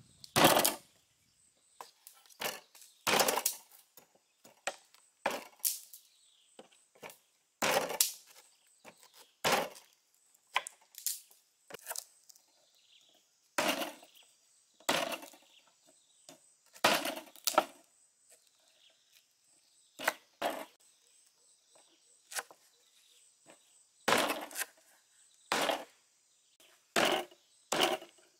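Knife and cleaver chopping on wooden cutting boards, through lemongrass stalks and beef ribs: sharp single strokes, irregularly spaced, about one a second.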